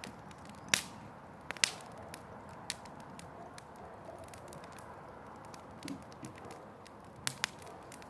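Bonfire burning with a steady hiss and sharp crackling pops at uneven intervals.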